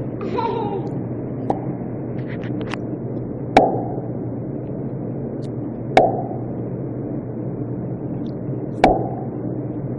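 Three sharp mouth pops, a couple of seconds apart, each with a short hollow ring, with a few fainter clicks before the first.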